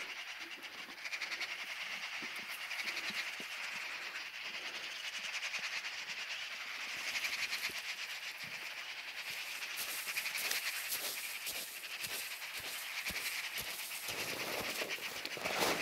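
A flock of magpies chattering together: a dense, steady rattle of many birds calling at once.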